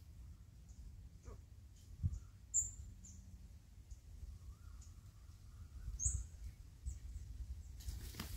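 Quiet dry-forest ambience with two short, high chirps. Near the end comes a brief flurry of wing-flapping from a red junglefowl rooster.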